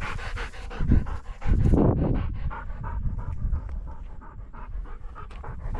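Hunting bird dog panting hard in a fast, even rhythm after a retrieve.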